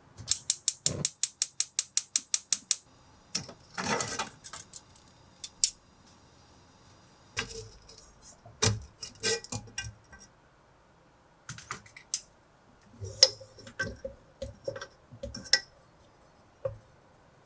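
Kitchen handling sounds: a fast, even run of about a dozen sharp clicks, around five a second, over the first three seconds, then scattered knocks and clatters of utensils and containers.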